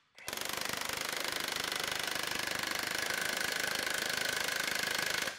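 Milwaukee 2868-20 1-inch D-handle cordless impact wrench hammering at full power on a torque dyno, driving straight through its own 1-inch anvil with no adapter. Rapid, even hammering starts just after the opening, a high whine joins about halfway, and it stops sharply near the end of the roughly five-second run.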